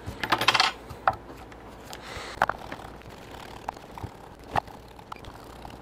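Hand work with a Torx driver on a Cummins ISX ECM's aluminium case as its screws are taken out: a short burst of scraping and clicking near the start, then three sharp metal ticks spread through.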